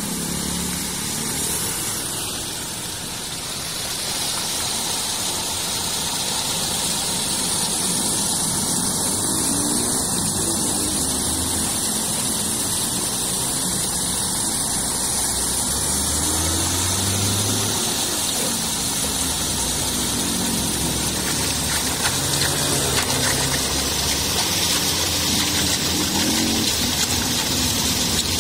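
Muddy floodwater rushing and churning into a roadside culvert through its rusty metal grate: a steady rushing noise from water draining freely once the grate has been cleared of trash.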